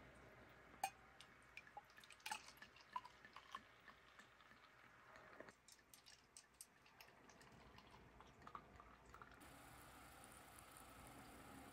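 Sparkling wine being poured into champagne flutes: faint pouring and fizzing with scattered small ticks.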